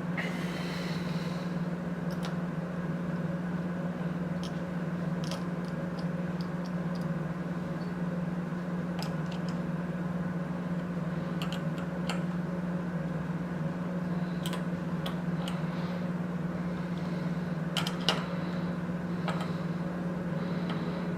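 Steady low hum, with scattered light clicks and taps of small hardware being handled as M4 nuts and screws are fitted to the beam assembly.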